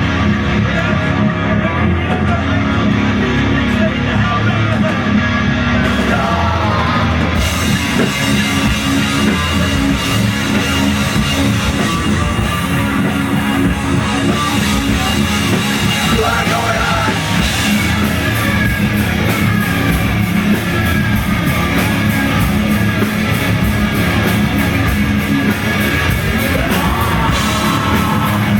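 Live rock band playing loud, with guitar and drums. The cymbals and drums come in fully about seven seconds in, and the beat becomes denser and more driving from about eighteen seconds.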